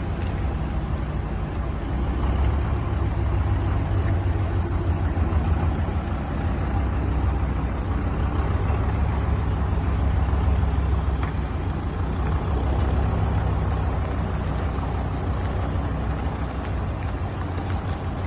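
A large vehicle's engine running steadily with a deep rumble, its level swelling and easing a little.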